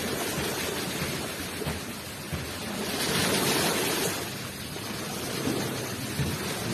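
Ocean waves rushing onto the shore: a steady wash of surf that swells louder for about a second near the middle as a wave comes in.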